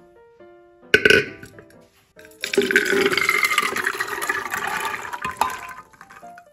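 Chickpeas poured from a bowl into an aluminium pressure cooker, a dense rattling pour lasting about three seconds, after a single sharp knock about a second in.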